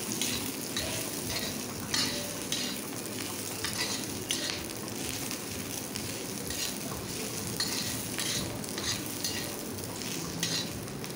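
Sliced onion and garlic sizzling in oil on an iron tawa, nearly browned, while a metal spatula stirs and scrapes them across the pan in repeated short strokes.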